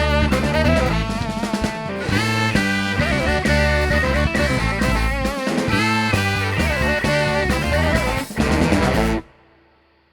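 A live band playing an instrumental ending with guitar, horns and drums, which cuts off together on a final hit about nine seconds in, leaving a short fading ring.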